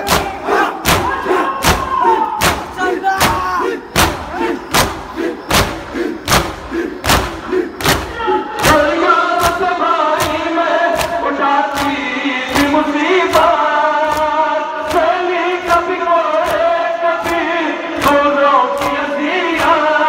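Mourners doing matam: many bare hands slapping bare chests together in a steady beat of about two strikes a second, under a crowd of men chanting a noha in unison. The chanting grows fuller about nine seconds in.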